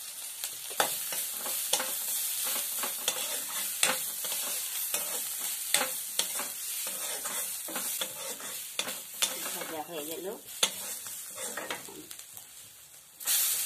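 Cumin seeds, bori, garlic and chilli sizzling in oil in a kadai, with a long metal spatula scraping and knocking against the pan again and again as it stirs. Near the end the sizzle dies down briefly, then a sudden loud burst of sizzling starts as the chopped greens go into the hot oil.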